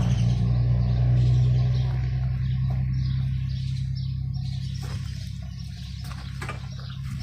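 A steady low mechanical hum, fading slowly, with a few light clicks and faint bird chirps.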